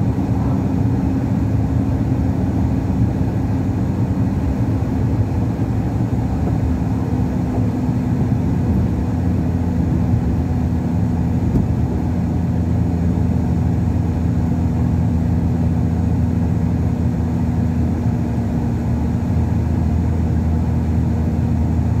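Heavy truck's diesel engine running steadily at cruising speed: a constant low drone with road noise underneath.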